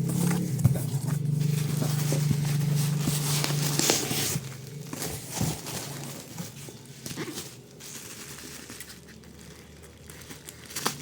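Plastic packaging crinkling and rustling as a box is unpacked. A steady low hum runs under it for about the first four seconds and then stops. After that the crinkling goes on more quietly.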